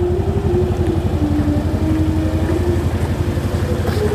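Mercedes-AMG C63's 4.0-litre twin-turbo V8 idling steadily, a low, evenly pulsing exhaust note.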